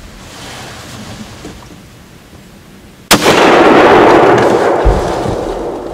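A single hunting-rifle shot about three seconds in: a sharp crack followed by a long echo that slowly fades.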